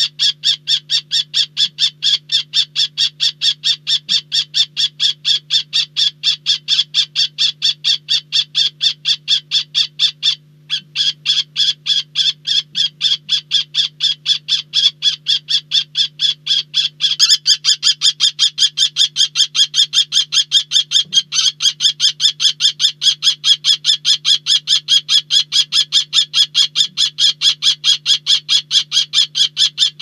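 Kestrel calling a long, rapid run of short shrill kee-kee-kee notes, about three a second, an agitated call typical of a kestrel in a fight. The run breaks off briefly about ten seconds in and turns louder and higher from about seventeen seconds. A steady low electrical hum runs underneath.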